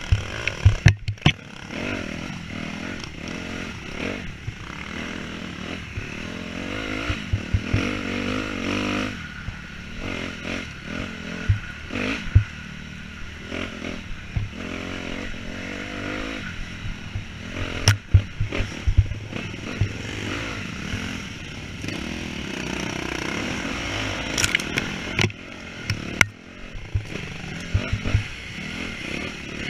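Off-road dirt bike engine revving up and down through the gears on a rough enduro track, with frequent sharp knocks and clatter as the bike takes bumps.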